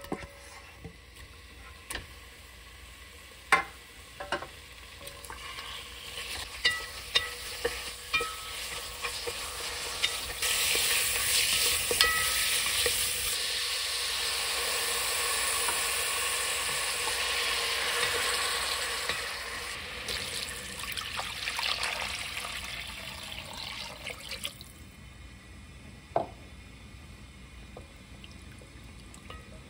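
Eel pieces sizzling as they stir-fry in perilla oil in a stainless steel pot, with scattered clicks and scrapes of a spatula against the pot. The sizzle builds, is loud and dense through the middle, and dies down well before the end.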